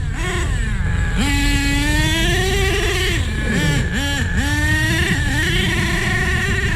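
Nitro glow engine of an HPI Savage RC truck running under load as it drives paddle tires through mud, its pitch climbing for a couple of seconds, dipping twice near the middle, then holding steady. The owner judges the engine to be tuned a little lean on the high end.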